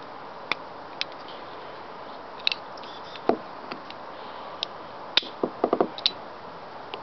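Sharp metallic clicks from the action of an antique Forehand & Wadsworth Double Action No. 32 revolver as its cylinder is turned by hand. The clicks come one at a time at uneven intervals, with a quick run of several about five to six seconds in.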